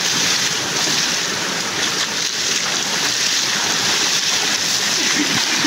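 Rushing river water, a steady loud rush with no break.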